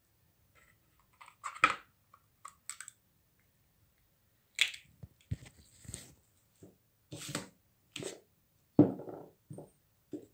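Scattered clicks, taps and knocks of kitchen things being handled: eggshell halves set down and a plastic mixing bowl with a fork in it moved about. The loudest knocks come about two seconds in, near the middle and near the end.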